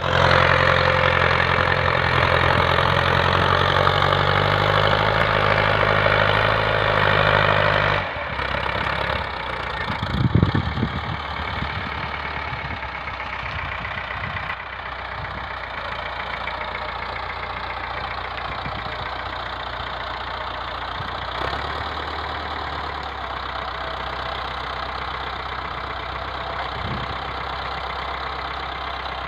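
Farm tractor's diesel engine running while it tows a trailer down a slope. It runs loudly for the first eight seconds, then drops suddenly to a lower, steady running sound, with one brief loud thump about ten seconds in.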